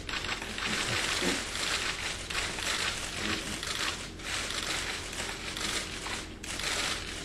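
Many press camera shutters firing in rapid, overlapping bursts, a dense crackling clatter that swells and eases about once a second.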